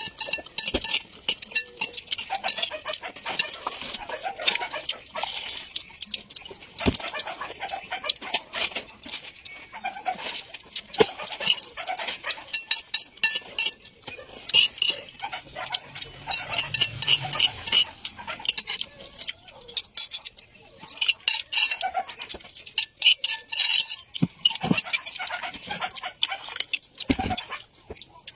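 Metal spoon clinking and scraping against a ceramic bowl, with chewing and eating mouth sounds, in many quick irregular clicks.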